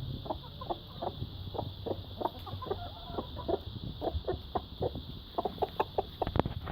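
Mother hen clucking in a quick run of short, repeated clucks, about three or four a second: the food call a hen makes to show her chick there is food.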